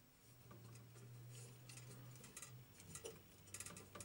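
Faint scattered clicks as the video poker machine's coin switch is tripped by hand to add credits, over a steady low electrical hum.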